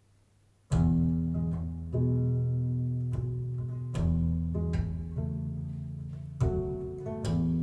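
Music played over a hi-fi system of a Cyrus ONE Cast amplifier and Audiovector QR5 floor-standing speakers. After a brief silence, a slow acoustic guitar intro begins, with deep plucked notes struck every second or two and left to ring.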